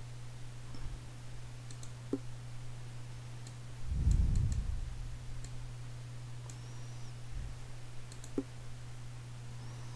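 A computer mouse clicking a dozen or so times at irregular intervals, over a steady low electrical hum. A dull low thump about four seconds in is the loudest sound.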